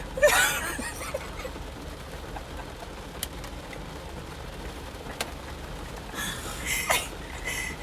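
A person crying: a short wavering sob just after the start, then a few breathy sniffs and breaths near the end.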